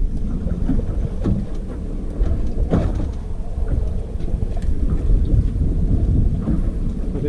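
Wind buffeting the microphone on an open boat at sea, a loud uneven low rumble, with a few light clicks of fishing gear.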